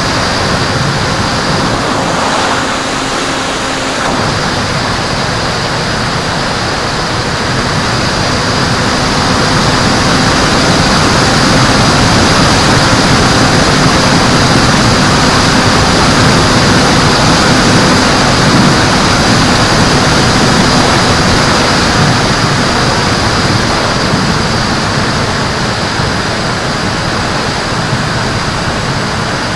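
Steady rushing of airflow with the faint hum of the electric motor and propeller, picked up by a camera riding on a fixed-wing FPV model plane in flight. The rush grows louder from about eight seconds in, as the plane dives and picks up speed, and eases again near the end.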